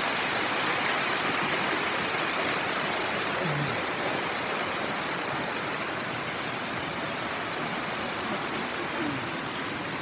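Steady rush of falling water from a waterfall, slowly getting a little quieter.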